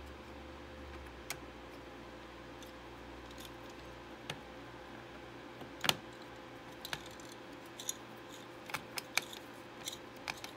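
Scattered small clicks and taps of metal and plastic computer parts being handled while a CPU cooler's mounting hardware is fitted to a motherboard, the sharpest about halfway through and a quick cluster near the end, over a faint low hum that fades about halfway.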